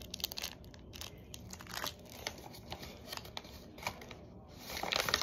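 Plastic wrappers of individually wrapped mini KitKat bars crinkling as they are handled, a string of light irregular crackles, busiest near the end.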